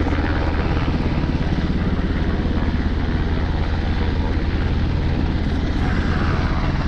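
Firefighting helicopter hovering low over the water while it refills, its rotor giving a steady, rapid chop.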